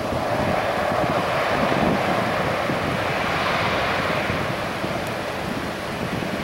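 Boeing 737's twin jet engines at takeoff power, a steady rushing roar heard from behind, with the jet blast buffeting the microphone.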